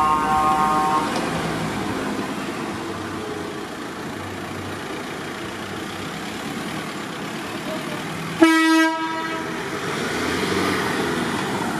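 Vehicles in a slow convoy driving past over cobbles, with horns honking: a short honk that stops about a second in, then a louder, lower honk of about half a second, roughly eight and a half seconds in.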